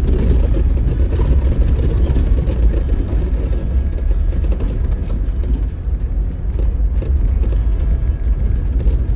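Off-road vehicle driving along a dirt trail, heard from inside: a steady low rumble of engine and tyres, with faint clicks and rattles from the rough ground.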